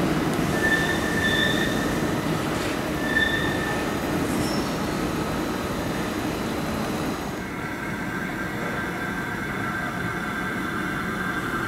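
An ICE high-speed train rumbling slowly into a station, its wheels squealing briefly twice on the curved track and points. After a cut, a DB class 412 ICE 4 arriving with a steady whine.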